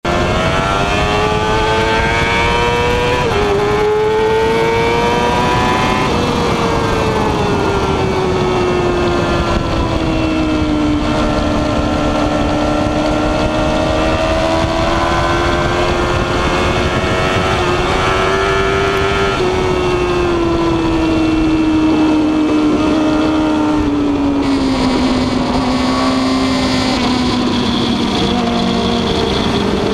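Sport bike's inline-four engine running at high revs on track, its pitch climbing and falling slowly through the corners, with a quick gear change about three seconds in. Heavy wind rush on the microphone runs underneath.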